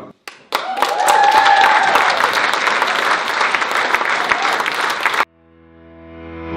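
Banquet audience applauding: dense hand clapping from the tables that cuts off abruptly about five seconds in. Music then fades in near the end.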